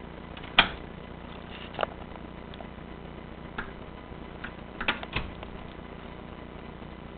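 A few sharp clicks and knocks, the loudest about half a second in and a quick cluster of three about five seconds in, over a steady low hum.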